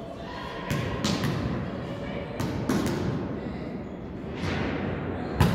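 Volleyball being struck by players' hands and arms: several sharp thumps, the loudest near the end, each with a long echo from a large sports hall.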